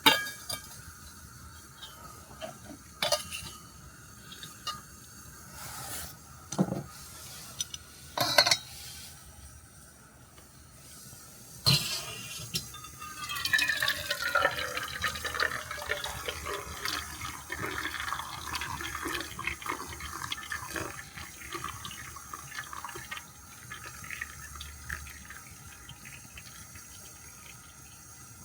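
A few clicks and knocks, then liquid being poured into a container for several seconds, the pouring fading out near the end.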